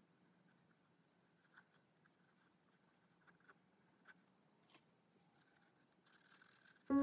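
Faint scratching of a marker pen tip on sketchbook paper, with a few light ticks. Music comes in suddenly just at the end.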